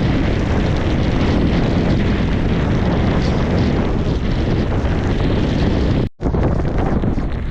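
Strong mountain wind buffeting the microphone: a loud, continuous rumbling rush. It breaks off for a moment about six seconds in, then carries on.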